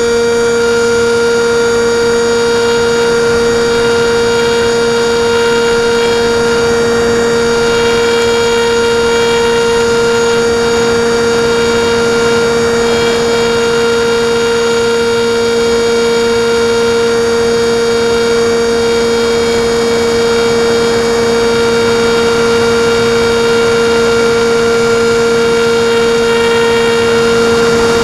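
Skywalker RC plane's electric motor and propeller running at a steady throttle: a loud, constant whine that holds one pitch throughout.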